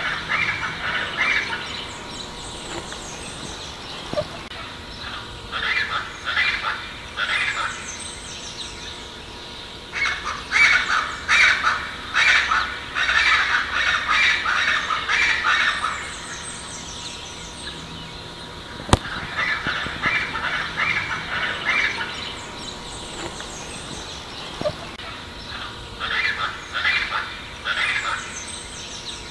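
Scaled chachalaca song: bouts of harsh, raspy, rapidly repeated calls a few seconds apart, the longest and densest bout near the middle.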